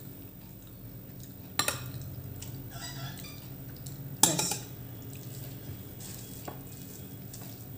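Rice being served onto a plate: a serving spoon clinks and scrapes against the dishes. There are two sharp clinks, one about a second and a half in and a louder ringing one just past four seconds, with small taps between them.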